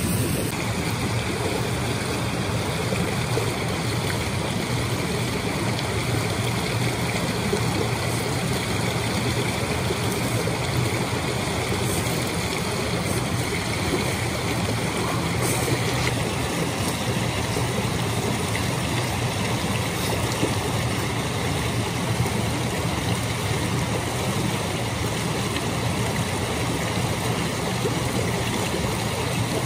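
Steady rushing of running water, like a stream, unchanging throughout.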